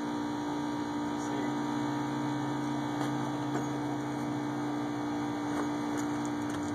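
A steady, even hum with a couple of faint clicks.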